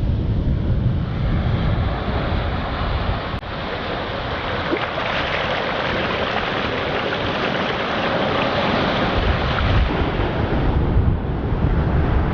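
Ocean surf washing on a beach, with wind buffeting the microphone in low rumbling gusts. There is a short break in the sound about three and a half seconds in.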